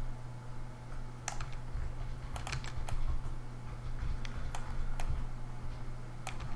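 Irregular, sparse clicks of computer keys being pressed while working in modelling software, over a steady low hum.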